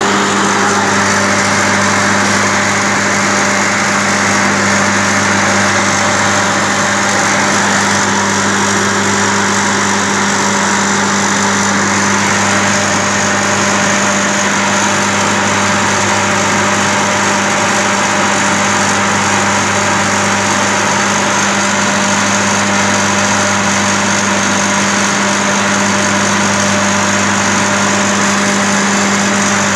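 Screw compressor running steadily: a loud, even machine drone with a constant low hum.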